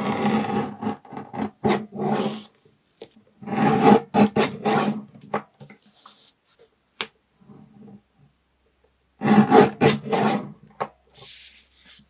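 Paper cutter slicing through sticker sheets: three rasping strokes of a second or two each, with a few sharp clicks between them.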